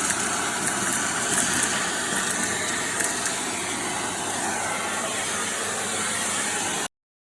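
Philips 1900 W vacuum cleaner running with a steady whooshing motor noise; the sound cuts off suddenly near the end.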